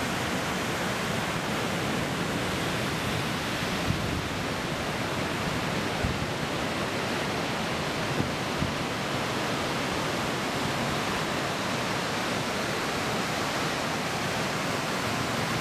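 Surf breaking on a beach: a steady, even rush of waves with a few brief knocks.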